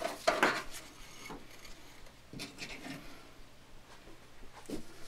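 Jumper cables and their metal clamps being handled under a car hood: a few short clacks and rubs, the loudest about half a second in.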